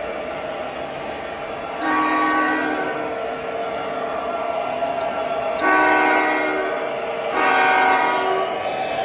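O gauge model diesel locomotive's onboard sound system playing a steady diesel engine rumble as the train runs, with three blasts of the chime horn about two, six and seven and a half seconds in.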